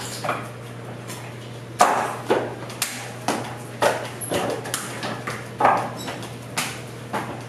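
Forearms and hands knocking against a wooden dummy's wooden arms and trunk in a quick, irregular series of sharp wooden knocks, some with a short ring.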